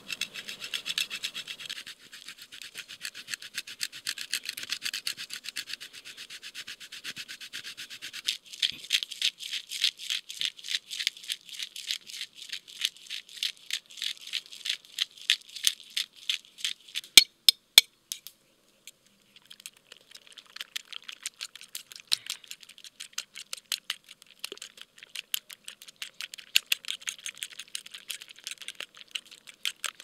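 Rapid, even rasping strokes of cheese being grated and black pepper being ground over a bowl of raw eggs. A few sharp clicks come just past the middle, then a short pause. A fork then beats the eggs in a ceramic bowl with quick rhythmic strokes.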